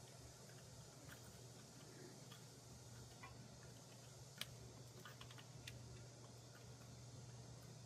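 Near silence with a low steady hum and scattered faint light clicks and taps, one sharper click about halfway through.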